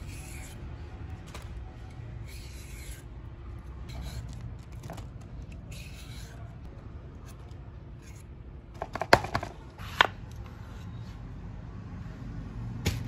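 Metal vegetable peeler scraping the skin off a green gourd in a few soft rasping strokes. Later come sharp knocks of a knife striking a wooden chopping board, two close together and one near the end.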